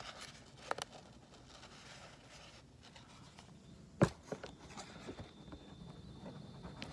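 Quiet handling noise: faint rustles and light clicks, with one sharp knock about four seconds in. A faint, steady, high-pitched whine starts just after the knock.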